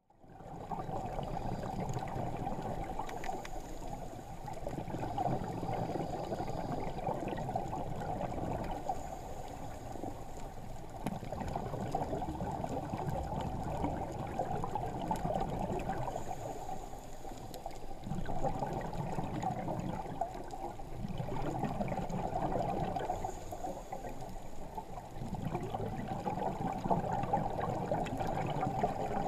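Scuba diver's exhaled bubbles gurgling underwater, heard muffled through the GoPro's waterproof housing. The bubbling swells and eases every few seconds with the breathing.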